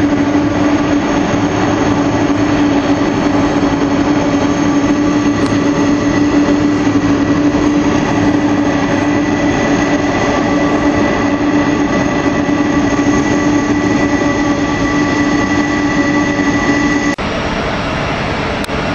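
Boeing 747 freighter's jet engines running at taxi power as the aircraft taxis past: a steady rush with a low hum and a high whine held throughout. Near the end the sound drops abruptly to a quieter, more distant level.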